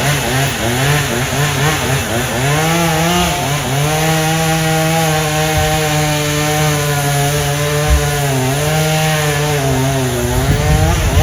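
Two-stroke chainsaw cutting oak: the engine pitch wavers with the throttle at first, then holds steady under load through the cut, dipping briefly once and dropping away near the end.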